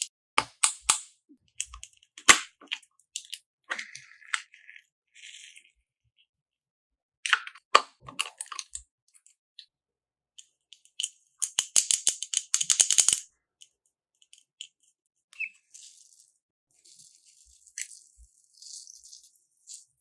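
Slime being squeezed and poked, making bursts of rapid crackling clicks; the longest and loudest burst comes a little past halfway, with fainter crackling near the end.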